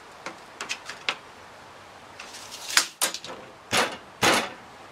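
Light clicks and knocks from hands working a plastic bucket drum and its clamped top flange, tapping it to bring the flange level, with two louder knocks between three and a half and four and a half seconds in.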